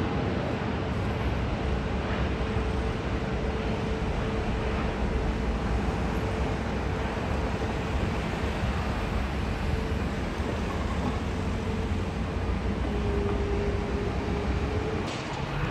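Airbus A320-family jet airliner's engines running as it touches down and rolls out on the runway: a steady rush of noise with a held whine that dips a little in pitch near the end.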